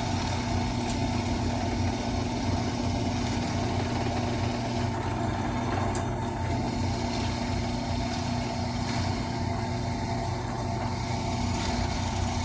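Drill press motor running steadily with a 5/16-inch wood bit boring into a mahogany guitar neck, a constant hum with no break.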